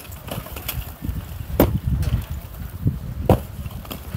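Sledgehammer striking a cement-block wall: two heavy blows about a second and a half apart, with lighter knocks between.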